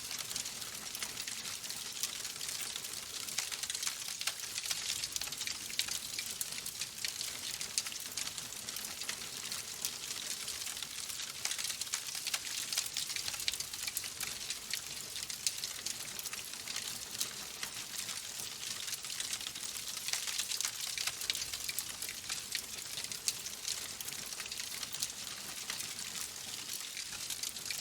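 Wood logs burning in a fireplace, crackling: a dense, steady stream of small pops and snaps over a soft hiss.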